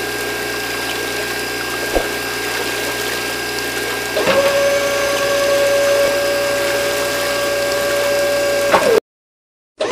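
Small electric motors of a toy borewell drilling rig running, with water churning in the muddy bore hole as the drill pipe spins. About four seconds in a steady motor whine starts. The sound cuts out completely for under a second near the end.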